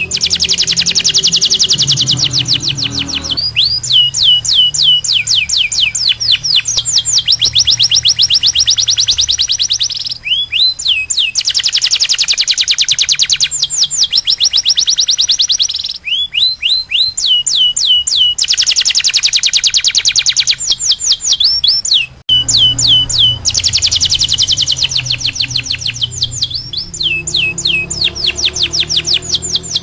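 Domestic canary singing a loud, continuous song: dense rapid trills alternate with runs of quick, falling whistled notes. Low background music plays underneath.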